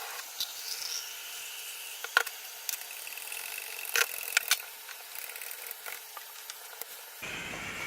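A few light clicks and knocks of things being handled, over a steady faint hiss.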